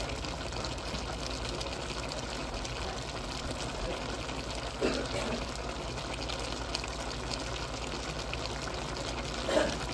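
Pork igado cooking uncovered in a pan, a steady bubbling hiss of sizzling and simmering, with two short louder sounds, one about five seconds in and one near the end.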